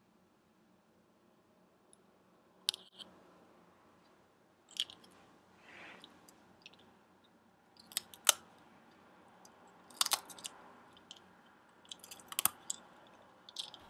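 Crisp crunching bites and chewing of a thin Wheat Thins cracker: a few sharp crunches spaced one to three seconds apart, with quieter chewing in between.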